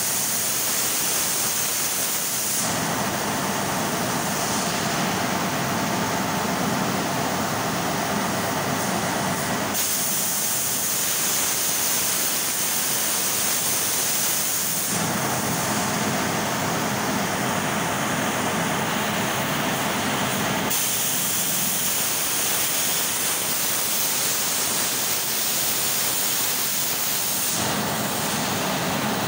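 CNC metal-cutting machine cutting sheet steel: a steady, loud hiss whose tone changes abruptly every five to seven seconds.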